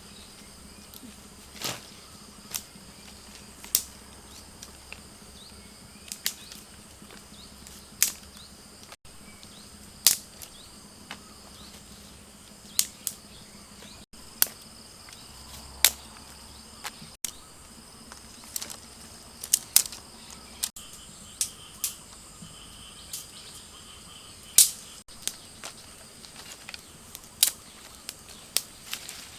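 Insects droning steadily at a high pitch, with sharp clicks or knocks every second or two that are the loudest sounds.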